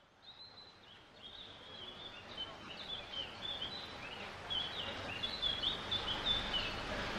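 Outdoor ambience of birds chirping over a background hiss, fading in gradually from silence: many short, high chirps repeated throughout.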